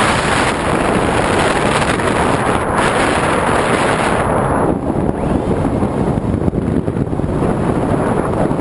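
Airflow rushing over the onboard camera microphone of a flying RC model plane: a loud, steady roar of wind noise that eases off, losing its hiss, a little over halfway through.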